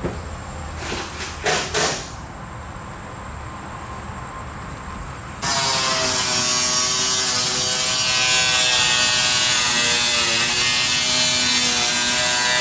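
Nissan S13 power steering pump whining loudly under a hiss as the wheel is turned, while the newly filled system bleeds itself. A few short knocks come about one to two seconds in, and the whine starts suddenly a little over five seconds in.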